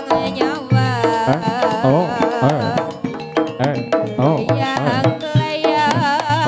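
East Javanese jaranan music: kendang drum strokes drive a brisk rhythm under a wavering, heavily ornamented melody.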